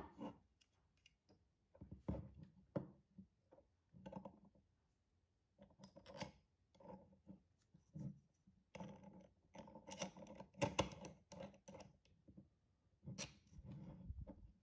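3D-printed plastic kit parts being handled and screwed together: irregular light clicks, knocks and scraping of hard plastic pieces against each other and the tabletop, with a large printed plastic screw turned by a screwdriver. The sounds come in short bunches with brief pauses between them.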